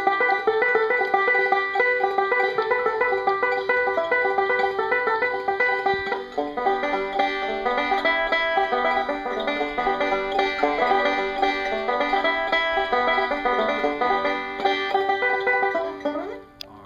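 Background instrumental music: a quick run of short notes that fades out near the end.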